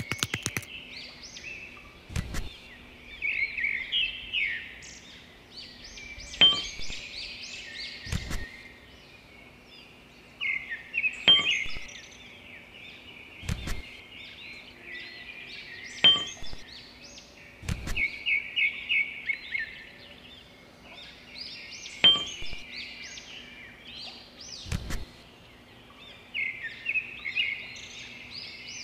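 Small birds chirping in repeated bursts, with about nine sharp clicks a few seconds apart, the knock of wooden craft sticks being set in place.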